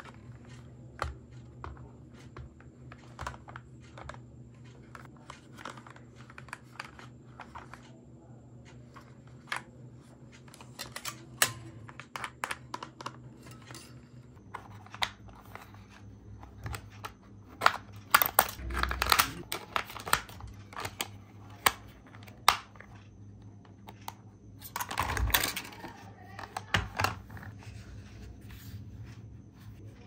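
Hollow plastic toy RC car bodies handled and turned over by hand: scattered small clicks and taps, with two denser spells of rubbing and rattling plastic about two-thirds of the way through and a little after.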